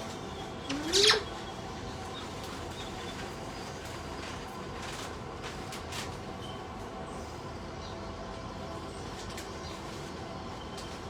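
A parrot gives one short, loud squawk about a second in that rises sharply in pitch. After it there is a steady background hum with a few faint clicks.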